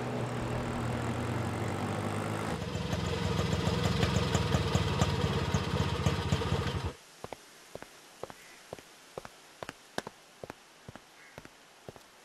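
Auto-rickshaw engine running, growing louder with a rapid low puttering from about two and a half seconds in, then stopping abruptly about seven seconds in. After that, steady footsteps on tile, about three a second.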